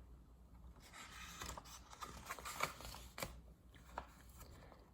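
Faint rustling and a few soft clicks of a picture book's paper pages being handled and turned.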